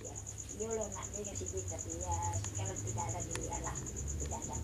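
A cricket chirping in a steady, rapid, high-pitched trill of evenly spaced pulses, with faint voices talking in the background.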